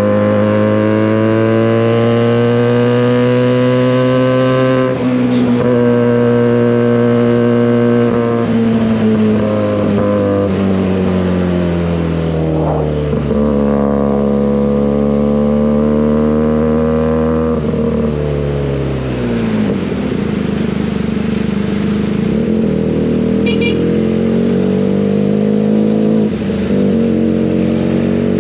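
Benelli 302S motorcycle's parallel-twin engine running through an SC Project aftermarket exhaust while riding. The revs are held high and ease down gradually, drop sharply about two-thirds of the way through as the throttle closes, then run lower and unsteady before rising again near the end.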